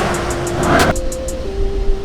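A car's engine noise under background music; the car sound cuts off abruptly about a second in, leaving the music's held notes.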